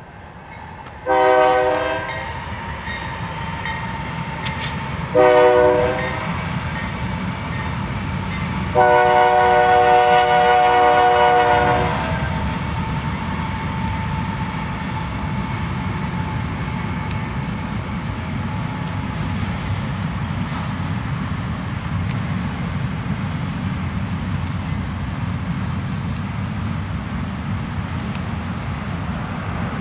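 Diesel freight locomotive's chime horn sounding three times, two short blasts and then a longer one of about three seconds, over the steady low rumble of a slow-moving freight train led by several locomotives.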